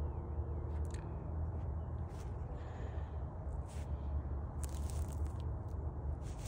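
Desert cottontail nibbling dry, frosty brush: scattered small crunches and clicks over a steady low rumble.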